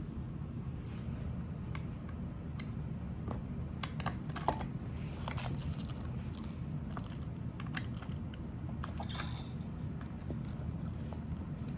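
Scattered light clicks and clatter of plastic tool parts, screws and a wrench being handled during assembly, over a steady low hum.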